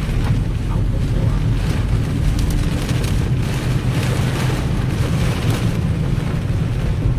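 Strong typhoon wind blowing across the microphone and heavy rain, over the steady running noise of a vehicle driving through the storm.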